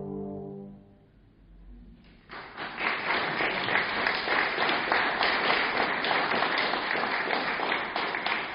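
A trombone quartet's closing held chord dies away in the first second, then after a brief hush an audience applauds steadily.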